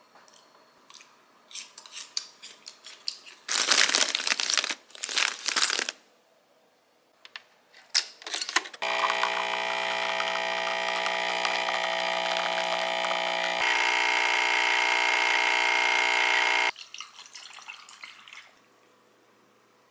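Espresso machine pump running steadily while pulling a shot. It starts about 9 s in, its pitch shifts about 14 s in and it stops abruptly near 17 s. Earlier, a few seconds of loud, noisy rustling bursts and clicks.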